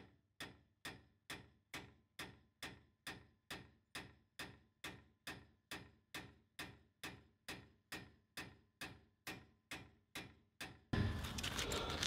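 One sharp hammer blow on a steel boat-trailer bracket right at the start, then the banging is cut out: near silence with faint, evenly spaced ticks about twice a second. Outdoor background noise returns about a second before the end.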